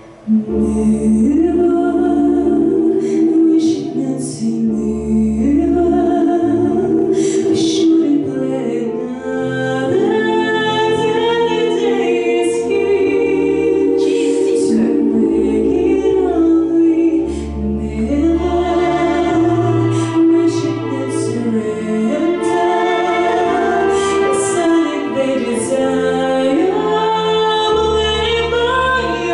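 A woman singing a pop-jazz song in a sustained, gliding melody over a backing track with bass and keyboard.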